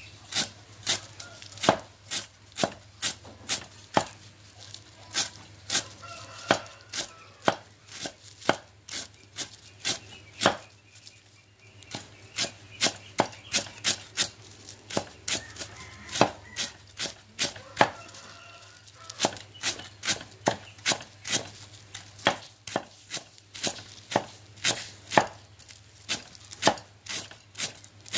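Cleaver slicing lemongrass stalks on a wooden cutting board: a steady run of sharp chops, about two or three a second, with a couple of short pauses.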